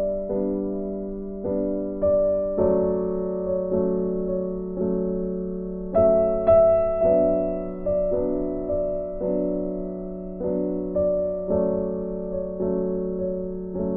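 Background piano music: soft chords struck again and again at a slow, even pulse, each dying away before the next.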